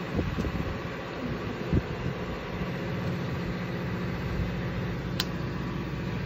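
Steady low hum of the boat's engine running at idle. A thump comes a little under two seconds in and a sharp click about five seconds in.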